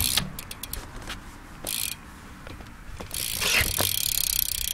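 BMX rear Salt hub ticking as the back wheel freewheels, its pawls clicking against the ratchet: a few separate clicks at first, then from about three seconds in a fast, steady run of clicks.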